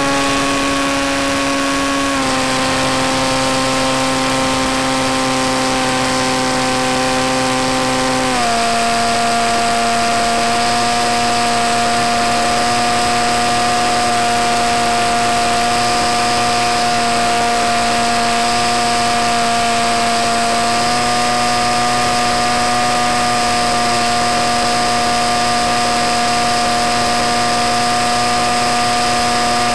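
Electric motor and propeller of a Skywalker RC plane running steadily in flight, a continuous whine over wind hiss. Its pitch steps down about two seconds in and again about eight seconds in as the throttle is eased, rises slightly about twenty seconds in, and drops once more right at the end.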